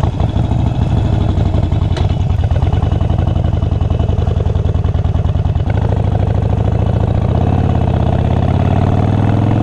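2015 Harley-Davidson Sportster 72's 1200 cc air-cooled V-twin running as the bike pulls away at low speed. The note steps up about halfway through, then rises steadily as the bike accelerates near the end.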